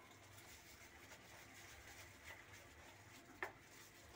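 Near silence, with faint soft scraping of a wooden spoon stirring cake batter in a plastic bowl, and one short sharp click about three and a half seconds in.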